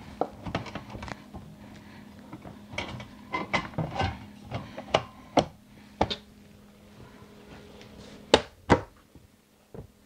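A slide-out room's jam clamp being pressed and rolled into the jamb channel by hand, giving scattered clicks and knocks as it seats. There are two sharp knocks in quick succession near the end.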